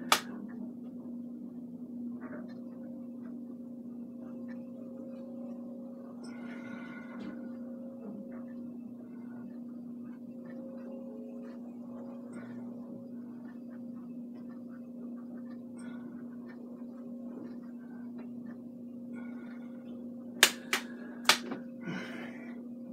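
Steady low hum throughout, with faint scratchy paintbrush strokes on canvas at times. A few sharp clicks come about twenty seconds in.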